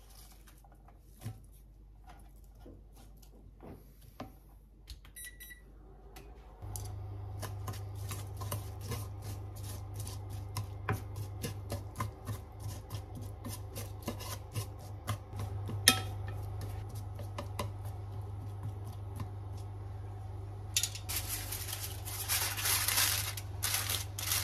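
An induction hob beeps as it is switched on, then hums steadily under a frying pan while chopsticks click and tick against it as onion and carrot are spread in the simmering liquid. Near the end, aluminium foil crinkles loudly as it is pressed over the pan as a drop lid.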